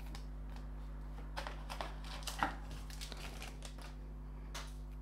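2023 Panini Donruss Optic football cards handled in a stack, slid one past another with a few short, soft swishes and clicks. A steady low hum sits underneath.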